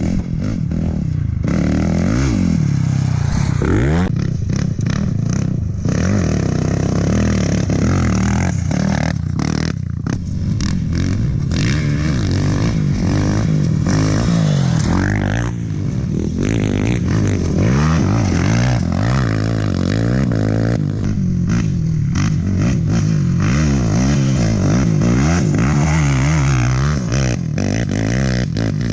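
Off-road racing motorcycle and quad engines at high revs, pitch rising and falling as they accelerate and pass, with the sound breaking off and changing abruptly many times.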